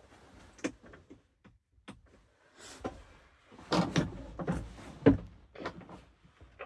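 Clicks, knocks and rattles of hands working the driver's side window controls and door panel of a semi truck cab, with the loudest knocks about four and five seconds in.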